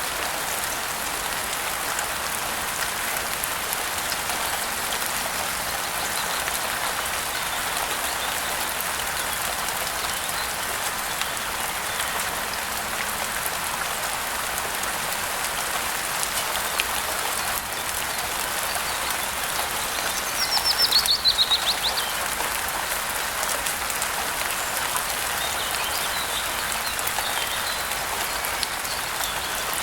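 Steady rain falling. About two-thirds of the way through, a bird gives one quick, falling trill over it, and a few fainter chirps come shortly after.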